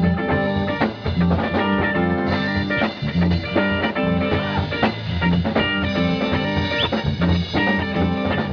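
Rock band playing: electric guitar, bass guitar and drum kit, with a bass line repeating about every second and steady drum beats.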